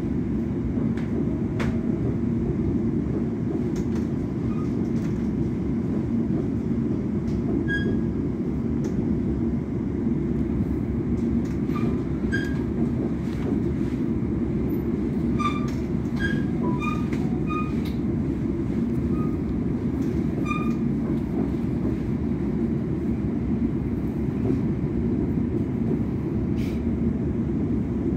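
Steady low rumble of a London Overground electric passenger train running along the line, heard from inside the carriage, with a steady low hum beneath it. A few brief high squeaks come and go around the middle.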